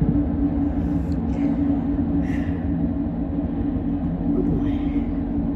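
CPKC freight train rolling past with a steady low rumble and a constant hum.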